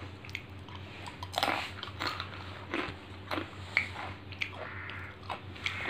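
A person biting into and chewing a hard snack stick: irregular short crunches, the loudest about a second and a half in.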